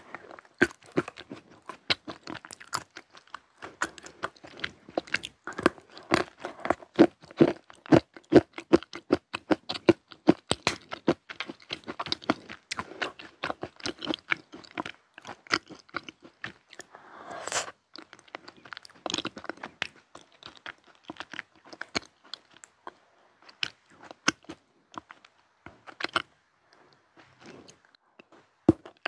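Close-miked chewing and crunching of a chocolate spoon coated in chocolate pudding: a quick, dense run of small crisp crunches.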